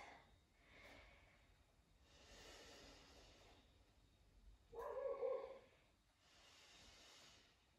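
Faint, slow, deep breaths through the nose, a few drawn-out hissy inhales and exhales, with one brief louder voiced sound about five seconds in.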